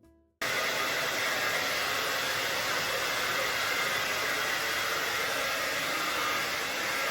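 Steady, even rushing noise that starts abruptly about half a second in and holds at a constant level.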